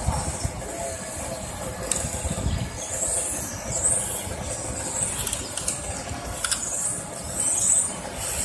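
High-pitched whine of 1:10 electric touring cars' brushless motors (13.5T and 8.5T), sweeping up and down in pitch several times as the cars accelerate and brake around the track.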